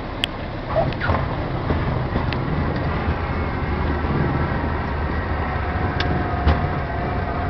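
Light airplane's engine running steadily with rushing air noise during a landing, with a few brief knocks.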